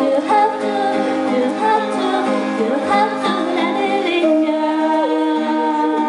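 A woman singing live to an acoustic guitar accompaniment. The song settles into long held notes near the end.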